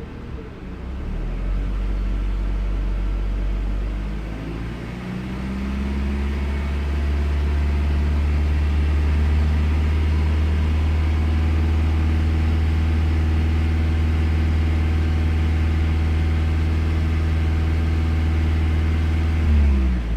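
Car engine running, its revs rising about five seconds in and then held steady for over ten seconds before dropping off near the end.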